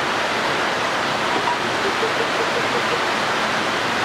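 Steady, even rushing hiss, with a faint row of short pitched notes about halfway through.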